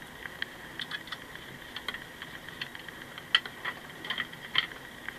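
Light, irregular clicks and taps of hard plastic toy parts and a small metal coil spring being handled while the spring is fitted into a Kenner M.A.S.K. Bulldog toy's chassis.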